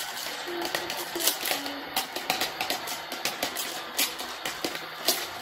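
Irregular clicks and knocks of plastic toy cookware: a utensil stirring and tapping in a toy pot, with toys being handled, over faint background music.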